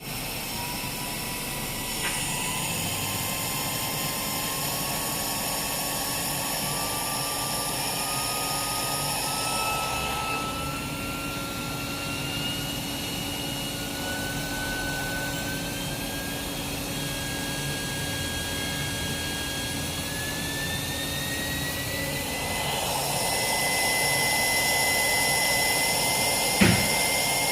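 High-speed spindle on a test run after repair, accelerating: a steady whine climbs slowly and evenly in pitch, with a hiss that comes and goes. A sharp click sounds near the end.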